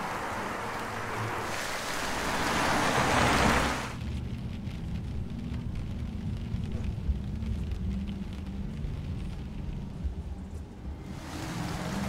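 Wet-road hiss of a VW ID.3 electric car's tyres in the rain, with no engine sound, swelling as the car pulls away and cutting off sharply about four seconds in. A quieter stretch follows with only a low rumble, and the rain-and-spray hiss returns near the end.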